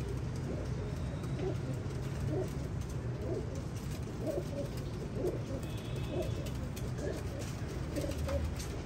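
Domestic pigeons cooing, short low coos repeating and overlapping over a steady low hum.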